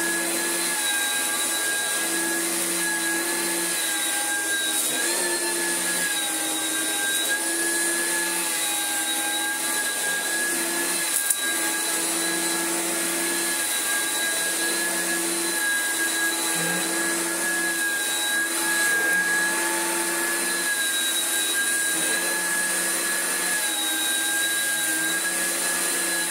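Oreck XL5 upright vacuum cleaner, fitted with a new pattern brush roll, running steadily on a deep rug: an even motor whine over a rushing hiss, its lower hum coming and going as the load changes. It cuts off at the very end.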